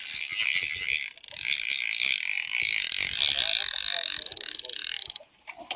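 Fishing reel being cranked, a rapid ratcheting clicking as a hooked king mackerel is reeled in to the boat. The clicking dips briefly about a second in and stops for a moment near the end.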